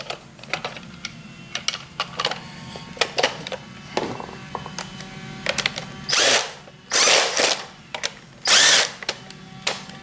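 Light plastic clicks and knocks as the gearbox housing parts are fitted together. Then a cordless drill with a long bit drives screws into the plastic housing in about three short whirring bursts, roughly a second apart.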